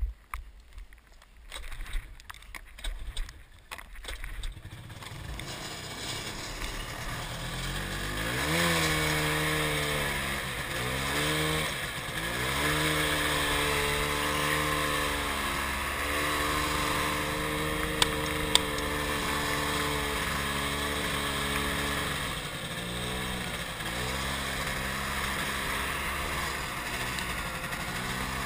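Snowmobile engine starting to run, then speeding up and slowing repeatedly, its pitch rising and dipping before holding fairly steady. Two sharp pops about half a second apart partway through, shots from a Crosman 3357 paintball marker. Scattered knocks and clicks in the first few seconds.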